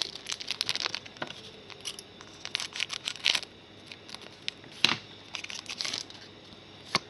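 A Donruss Soccer foil trading-card pack crinkling and tearing as it is opened, with paper cards rustling and a few sharp clicks.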